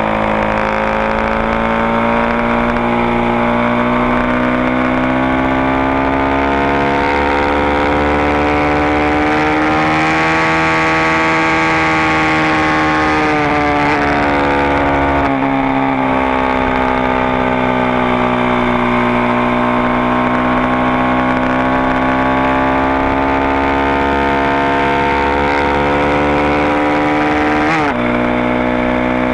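Supermoto motorcycle engine running on the throttle at track speed. Its pitch climbs slowly, eases back down, and dips sharply for a moment near the end before picking up again.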